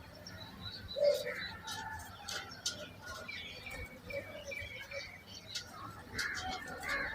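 Birds chirping in many short, high calls, with a brief louder, lower call about a second in.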